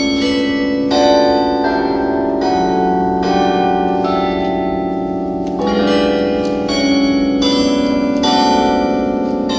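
Church tower bells of several different pitches ringing one after another, a new strike coming every second or so and each one ringing on under the next.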